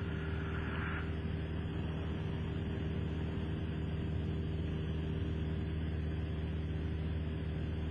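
Cessna 172SP Skyhawk's four-cylinder Lycoming piston engine and propeller droning steadily in flight, heard from inside the cabin.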